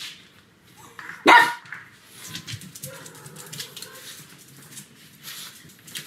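A pug barks once, loud and short, about a second in, followed by softer, faint sounds.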